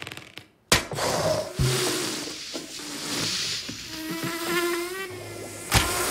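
Cartoon sound effects: a sharp hit as the inflated pufferfish is punctured, then air sputtering and hissing out as it deflates and whizzes around like a released balloon, with a wavering squeal. Near the end comes a second sharp crash as it bursts through a paper shoji screen.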